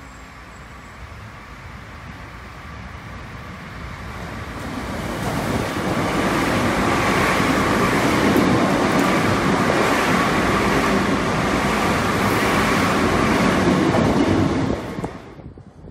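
Korail Line 1 resistance-controlled electric commuter train running past a station platform. Wheel-on-rail and running noise builds over a few seconds as it approaches, stays loud while the cars go by, then cuts off abruptly near the end.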